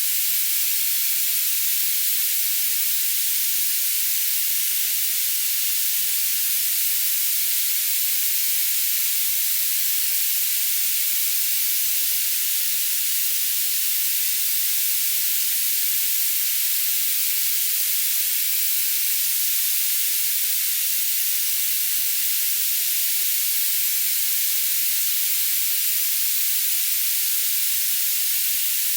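Tinnitus-masking noise: a steady, unbroken high-pitched hiss of filtered noise with no low end.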